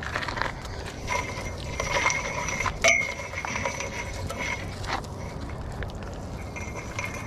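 Light metallic clinks and rattles of small metal pieces being handled, with a sharp ringing click about three seconds in and another near the five-second mark.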